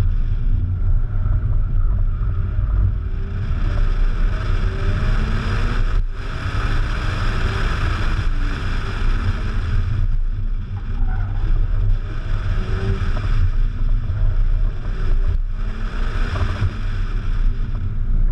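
A car engine running hard through a slalom course, its revs rising and falling again and again as the driver works through the gears and turns. It is buried under heavy wind rumble on the microphone.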